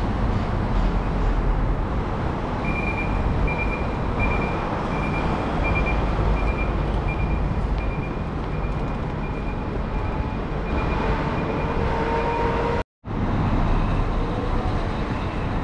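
Traffic at a city bus terminal, with vehicles running steadily. A high electronic beep repeats about every 0.7 s for most of the time, and a short whine comes in near the end. The sound cuts out for an instant about 13 s in.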